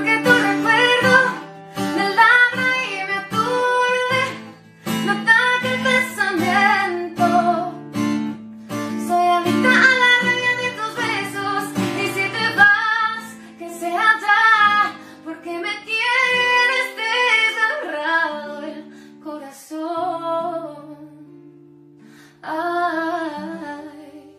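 A woman singing a song while accompanying herself on acoustic guitar. The singing grows softer near the end.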